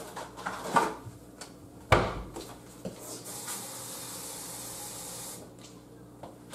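Knocks and clicks from a lower kitchen cabinet being searched, with a sharp thud just before two seconds in. Then a kitchen faucet runs steadily for about two and a half seconds and shuts off, filling a cup with water for the bottom of a roasting pan.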